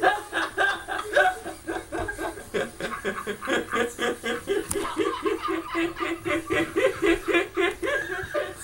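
People laughing hard on a Skype video call, played through a TV's speaker: rapid, rhythmic bursts of laughter, about four or five a second, without a break.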